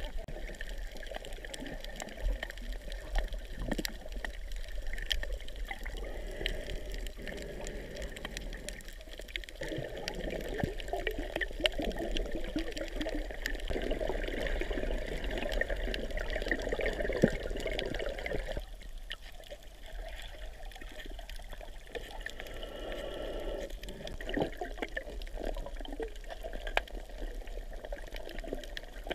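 Water sloshing and gurgling around a camera held underwater, with scattered small clicks. It drops quieter for a few seconds about two-thirds of the way through.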